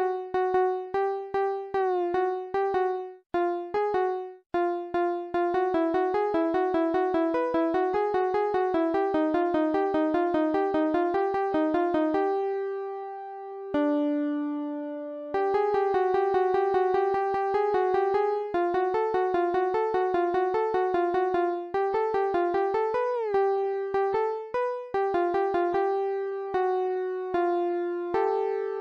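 Solo keyboard music with a synthesized electric-piano tone, playing quick runs of short notes, each starting with a sharp attack. About halfway through, the runs stop for a moment on a held low chord, then resume.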